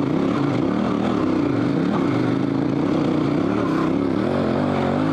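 KTM 1190 Adventure R's V-twin engine pulling steadily in second gear up a loose dirt hill climb, its pitch dipping and rising slightly as the throttle changes.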